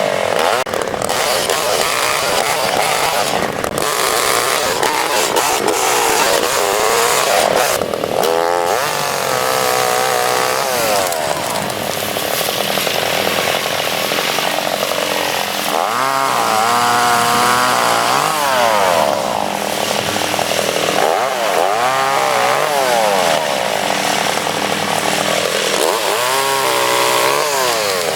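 Lighter chainsaw running and revving up and down again and again as it cuts branches of a dead oak tree.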